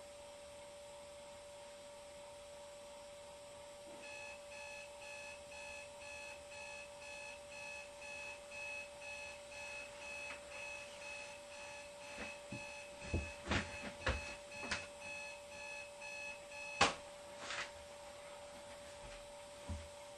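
Electronic alarm clock beeping at about two beeps a second, starting about four seconds in. Knocks and rustles come in as it goes on, and the beeping cuts off at a sharp knock near the end, as it is switched off.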